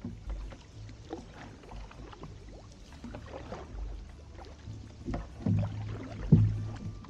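Canoe paddles dipping and pulling through calm water with splashes and drips, over a steady low rumble. Two louder thumps come about five and a half and six and a quarter seconds in.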